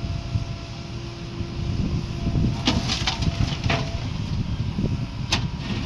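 Heavy diesel earth-moving machinery running with a steady low rumble. A cluster of sharp knocks comes about halfway through, and one more near the end.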